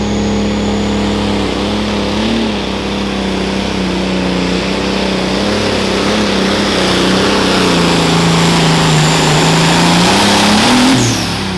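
A John Deere 4450 super stock pulling tractor's turbocharged engine runs hard under full load while pulling the sled. Its pitch sags gradually in the second half, with a faint high turbo whine. Near the end it rises sharply, then drops away as the engine lets off.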